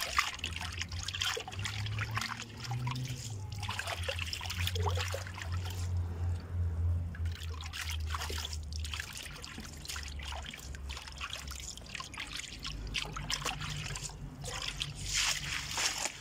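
Water trickling and splashing as fresh herb sprigs are rinsed by hand, irregular and uneven, over a low hum that is strongest in the first half.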